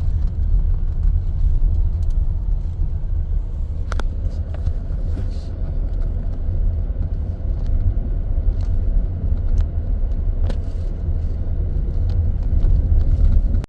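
Car driving along a road: a steady low rumble of road and engine noise, with a couple of faint knocks.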